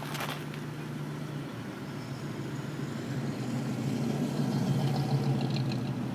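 2004 Jeep Grand Cherokee running, a steady low engine and drivetrain hum that rises in pitch and loudness from about halfway through.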